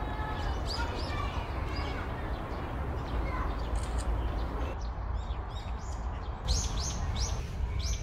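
Small songbirds chirping in the trees: short, high, downward chirps throughout, with a quick run of four louder ones near the end, over a steady low rumble.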